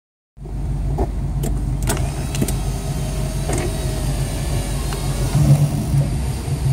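Subaru boxer engine running, a steady low exhaust rumble heard from inside the cabin, with several sharp exhaust pops in the first four seconds echoing off the parking garage's concrete.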